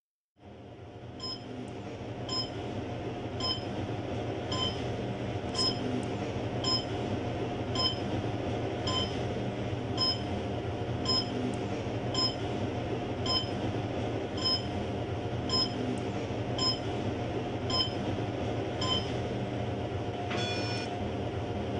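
Steady hiss and hum of a large indoor space, fading in at the start, with a short high ping repeating about once a second. The pings stop near the end, and a brief different tone follows.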